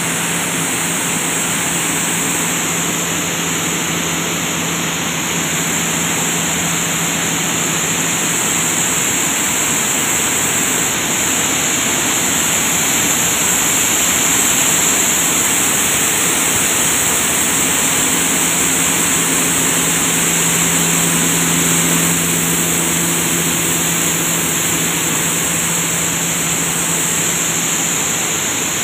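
Grain cleaning and grading machines running: a loud, steady mechanical noise with a low motor hum, the sound of pulses being cleaned and graded.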